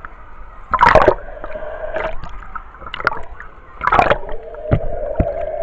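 Pool water splashing and gurgling against a camera held right at the water surface, with two loud splashes, about a second in and about four seconds in.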